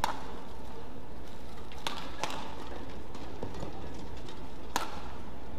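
Badminton rally: a few sharp racket strikes on the shuttlecock, one right at the start, two close together around two seconds in and one near the end, with players' footsteps thudding on the court over steady hall noise.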